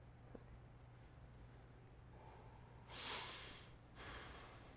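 Near silence: quiet room tone with a low hum and a faint high chirp repeating about twice a second. Two soft breaths come about three and four seconds in.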